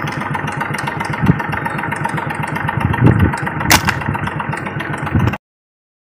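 An engine running steadily, with one sharp click a little before the end; the sound then cuts off abruptly.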